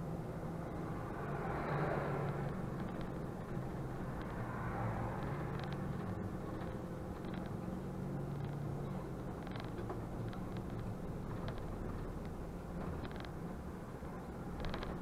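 Mercedes-Benz Conecto city bus driving, heard from the driver's cab: a steady engine hum and road noise that swell briefly twice in the first few seconds, with a few light clicks and rattles in the second half.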